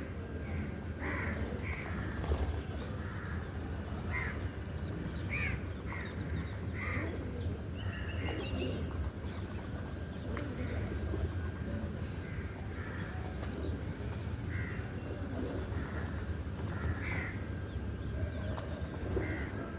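Crows cawing with short, repeated calls at irregular intervals, over a steady low hum.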